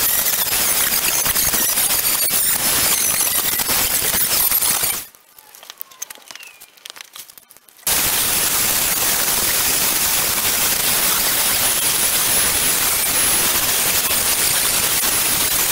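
Angle grinder with an abrasive sanding disc grinding down the welded seam on a steel car wing, with a high steady whine over the grinding noise. It stops about five seconds in and starts again about three seconds later.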